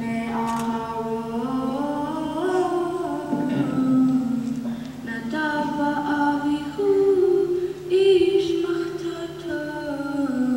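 A girl's solo voice chanting the Torah reading in Hebrew cantillation, unaccompanied: long held notes that slide from pitch to pitch, with short breaks between phrases.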